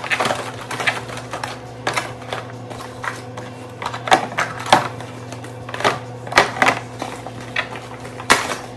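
Irregular clicks and knocks of grocery items and packaging being handled and set down, about one or two a second, over a steady low hum.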